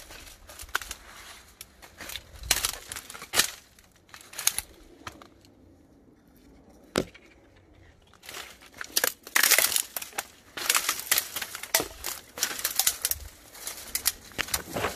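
Dry dead stems and twigs crackling and snapping as someone pushes through dense overgrowth, in irregular clusters of sharp crackles. There is a quieter lull around the middle, broken by a single snap.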